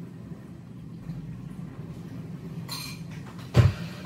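A person getting up from a kitchen table: a short rustle, then one heavy knock of the chair or table about three and a half seconds in, over a steady low hum.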